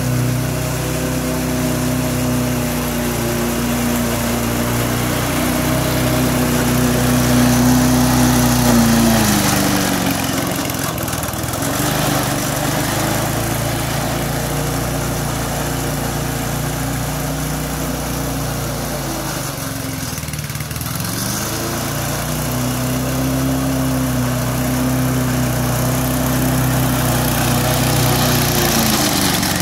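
Small petrol lawn-mower engine on a remote-controlled mower running steadily. Its speed drops about nine seconds in, wavers lower for a while, and picks back up about twenty-two seconds in.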